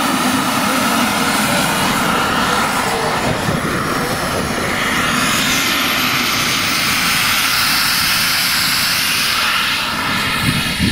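Twin turbine engines of a large radio-controlled A-10 Warthog model running as it taxis, a steady jet hiss and whine that swells in the middle and eases near the end.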